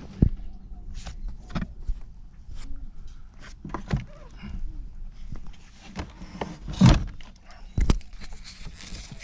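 Handling noise from working on an opened generator: scattered light clicks, knocks and rustles, with a louder thump near the start and two more close together near the end.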